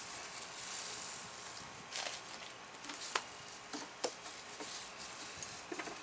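Twine being wrapped around the neck of a plastic kitty-litter jug: light rustling and scraping of the line on the plastic, with a few sharp clicks and taps, about 2, 3 and 4 seconds in.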